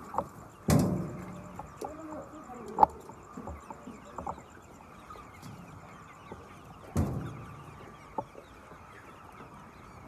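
A flock of white chickens clucking and calling, many short overlapping calls. Two louder sudden noises stand out, about a second in and about seven seconds in.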